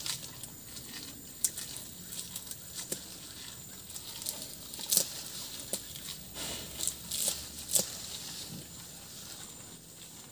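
A cow grazing: irregular crisp snaps and crunches as grass and leaves are torn off and chewed, with rustling of the undergrowth.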